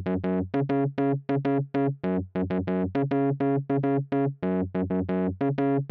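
Instrumental keyboard music: a quick, even run of short staccato notes, about five a second, over a low bass line.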